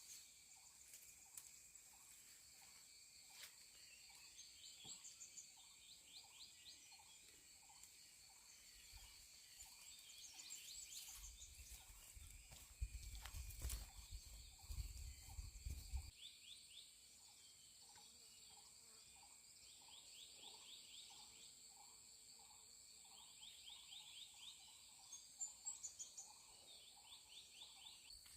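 Faint outdoor ambience of a steady insect chorus, a high buzzing and trilling. Through it runs a short call repeated about twice a second. A stretch of low rumbling with a few knocks comes in the middle.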